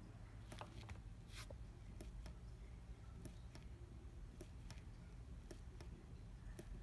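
Faint clicks of a small tactile push button on a Digilent Nexys 3 FPGA board, pressed and released over and over, two or three clicks a second.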